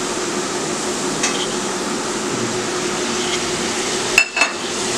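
Masala frying with a steady sizzle in a steel kadai while a steel ladle stirs it, giving a couple of light clinks and then two sharp knocks of the ladle against the pan near the end.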